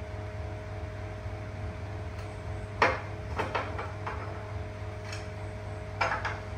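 A plate of fruit being handled and set down on a glass tabletop: a sharp knock about three seconds in, a few lighter clinks just after, and another knock near the end, over a steady low hum.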